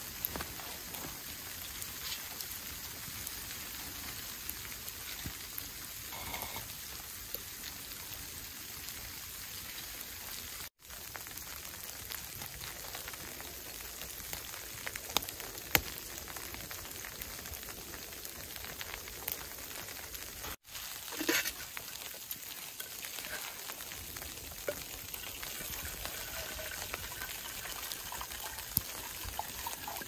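Wet snow falling steadily on a camouflage tarp shelter and the ground around it, a continuous rain-like pattering hiss, with a few sharp clicks scattered through it. The sound drops out briefly twice.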